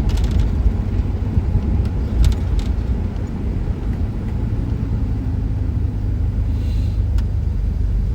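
Steady low rumble of a car driving, with a few faint clicks.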